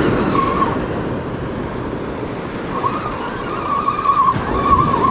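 Surf washing onto the beach, with wind on the microphone, and a spinning reel being cranked to bring in a hooked fish. The reel gives a wavering whine briefly at the start and again from about three seconds in.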